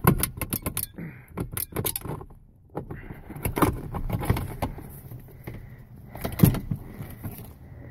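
Metal clicking and rattling as a Dodge Ram seat's recliner spring and shaft are shaken and wiggled to work them loose from the seat frame. The clicks come in uneven clusters.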